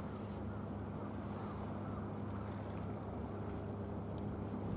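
A steady low motor drone with a constant hum. A second, fainter higher tone joins about three seconds in.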